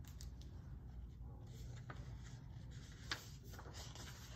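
Paper pages of a picture book being handled and turned, a soft rustling with a small tap about three seconds in.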